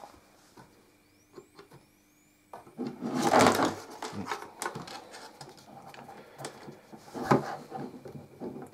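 Handling noise: rustling, knocks and clicks as the camera and alligator-clipped test leads are moved about on the bench, loudest about three seconds in. A faint steady high tone runs underneath.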